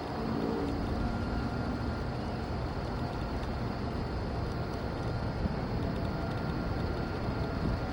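Steady distant outdoor rumble with a faint steady hum, like vehicles or machinery running far off.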